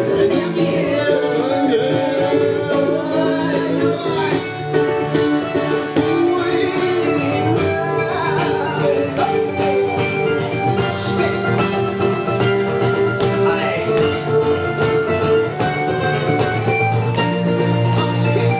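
A live band playing an instrumental passage: plucked guitars over a steady beat, with a melodic lead line gliding above.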